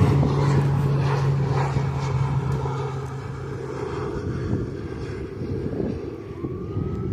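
Airplane engine drone, a low steady hum that fades away over the first few seconds, leaving a low rumble.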